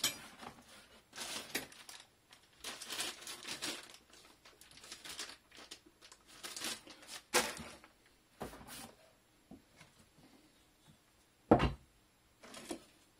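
Crinkling and rustling of paper packing and plastic bags as hands rummage through a plastic box of old car parts, in irregular spurts. A sharp knock comes about halfway through and a louder one near the end as a metal part is handled.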